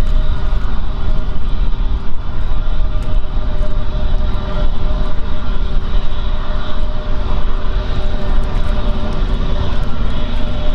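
Airbus A321 jet engines running steadily: a constant whine of several fixed tones over heavy low noise, with no spool-up or change in pitch.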